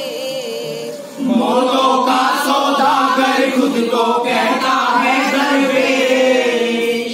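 A group of voices chanting together, joining in loudly about a second in after a quieter single voice.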